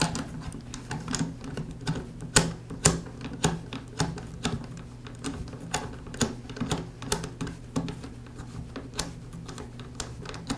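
Irregular small metallic clicks and light rattles, a few a second, as the thumb screw is turned off the threaded clamp screw of a Porter Cable 690 router's base clamp.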